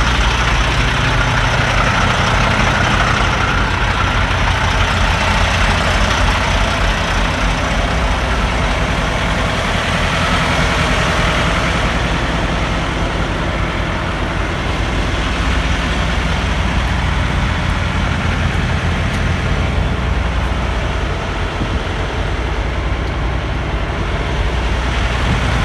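Semi truck's diesel engine running steadily, with a steady low drone.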